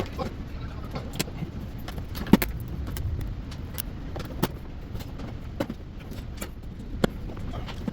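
Scattered sharp clicks and knocks, roughly one a second and the loudest about two seconds in, over a low steady rumble.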